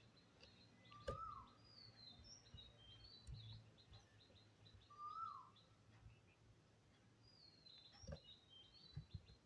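Near silence with faint bird chirps in the background and a couple of soft clicks.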